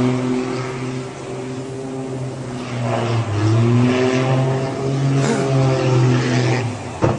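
Light aircraft's propeller engine droning steadily, its pitch wavering slightly as the plane tumbles, with a sharp crack near the end.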